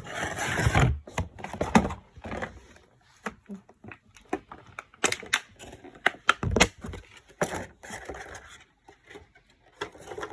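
Hands working at figurine packaging: irregular clicks, scrapes and rustling, with a denser burst of rustling in the first second.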